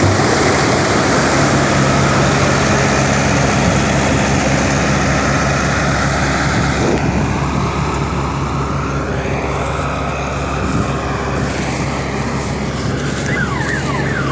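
Preet 949 TAF tracked combine harvester's diesel engine and machinery running steadily, with a constant low engine tone. The high hiss thins out about halfway through.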